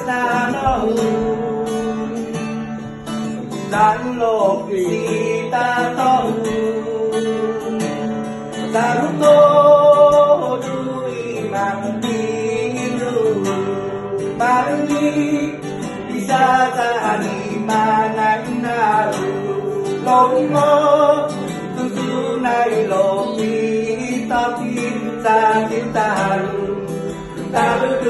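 Live acoustic guitar, strummed and picked, with a voice singing a melody over it.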